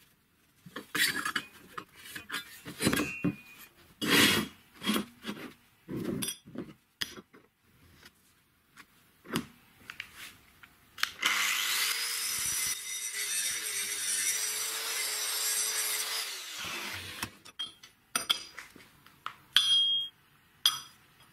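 Scrapes, taps and knocks of a steel square tube being marked and handled. About eleven seconds in, a handheld power tool spins up and cuts into the steel tube with a steady, loud hiss for about six seconds, then winds down, followed by a few more knocks.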